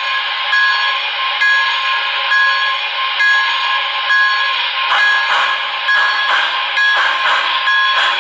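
Steam-locomotive sound from the DCS sound system of an HO-scale MTH C&O 2-6-6-6 Allegheny model: the bell ringing, re-struck about once a second, over steam hiss. About five seconds in, exhaust chuffs at about two a second join in as the engine starts to pull.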